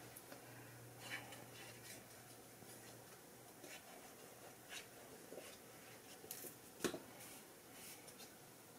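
Faint scratching and rustling as the tip of a liquid glue bottle is drawn over patterned paper and the paper pieces are handled, with a few soft taps and one sharper tap about seven seconds in.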